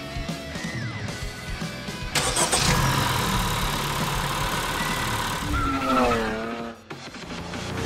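Cartoon race-car sound effects over background music: a loud hissing rush starts suddenly about two seconds in, and near the end a tone slides downward and cuts off.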